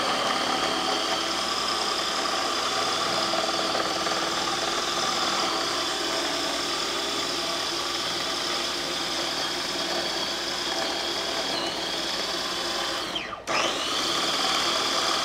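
Small electric food processor running steadily, its blade churning a thick, sticky banana and peanut-butter mixture. Near the end the motor winds down and cuts out for an instant, then picks up again.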